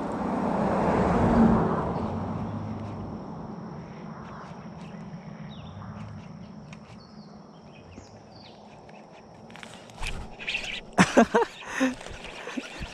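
A gust of wind on the microphone, then a thin steady high tone in the background. From about ten seconds in, a hooked bass is reeled in to the bank, with a run of sharp splashes and reel noise.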